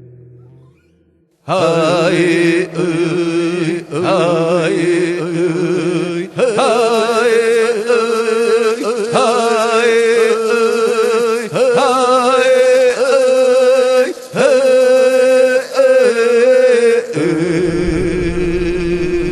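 Prayer-song music: after a brief pause, wordless chanted vocals come in about a second and a half in. They rise and fall with vibrato in phrases of a second or two, over a steady held drone.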